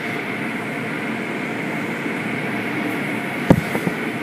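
Automatic tunnel car wash running, heard from inside the car: a steady rush of machinery and water spray. A sharp thump about three and a half seconds in is followed by two lighter knocks.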